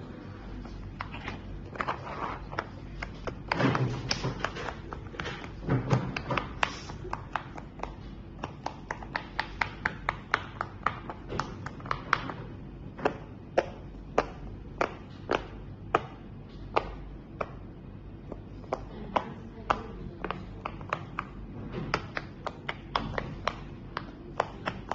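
Fidget toys being handled: a long run of sharp, irregular clicks and taps, often several a second, with a denser patch of louder knocks a few seconds in.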